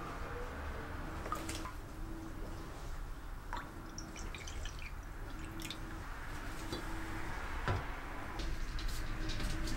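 Milk poured from a carton into a ceramic mug, then water poured in from a kettle spout, the liquid trickling and filling the mug. A light knock near the end.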